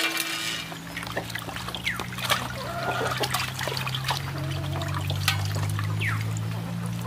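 Water sloshing and trickling in an aluminium basin as hands rub and rinse small river fish, with water running off the handful of fish near the end. A steady low hum runs underneath.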